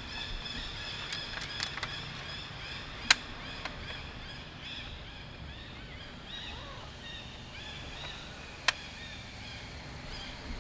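Many short, high chirping animal calls repeating, broken by two sharp clicks, about three seconds in and again near the end, which are the loudest sounds.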